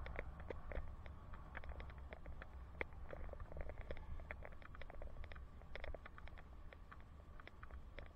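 Faint low rumble of wind and road noise on a helmet-mounted camera while cycling, with many irregular light clicks and rattles.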